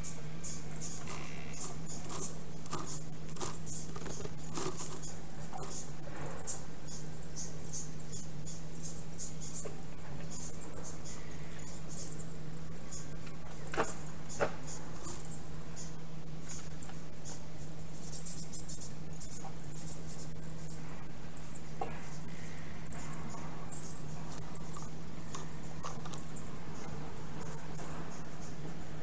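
Rapid, very high-pitched squeaky chirps, several a second, over a steady low hum: forest birdsong, most likely sped up along with the time-lapse picture.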